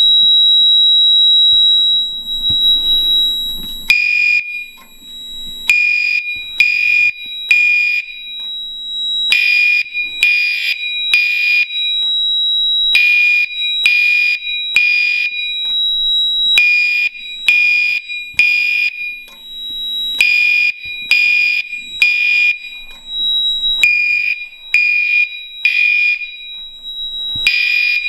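Three Gentex Commander 4 fire alarm horns sounding in a code-3 temporal pattern, groups of three blasts with a pause between, after a manual pull station has been pulled. One horn is on its mechanical buzz tone and two are on a 2400 Hz tone. A steady high tone runs underneath and is heard alone for the first four seconds or so, before the pulsing starts.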